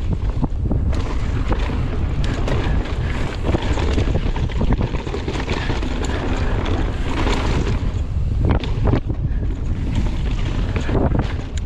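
Wind buffeting the microphone of a camera on a mountain bike at speed down a trail, with the rumble of the tyres and the bike's rattles and knocks over rough ground.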